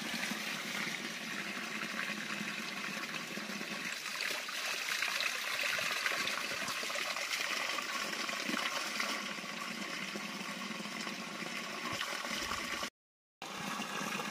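Small hill stream running over rocks, a steady splashing trickle; the sound drops out for a moment near the end, then water pours from a spring-fed pipe spout.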